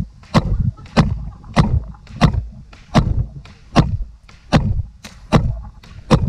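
Paintball marker firing single shots at a steady pace, a sharp pop about every two-thirds of a second, around ten in all.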